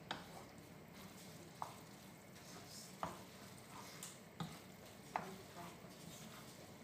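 Noodles being stirred and tossed in a frying pan over a faint steady sizzle. The utensil gives several sharp taps against the pan, spaced about a second apart.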